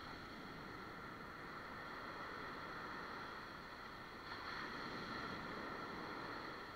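Steady ocean surf with wind noise on the microphone, swelling a little about four seconds in.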